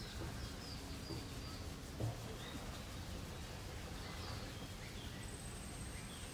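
Birds chirping, short sliding notes scattered throughout, over a steady low rumble, with one soft thump about two seconds in.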